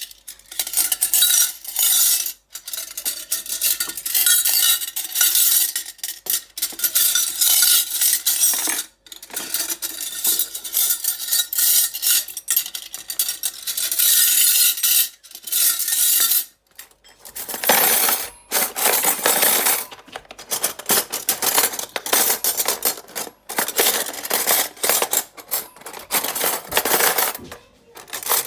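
Metal spoons, knives and forks rustling and clinking against each other in bursts, with brief pauses between; the later bursts sound fuller and denser.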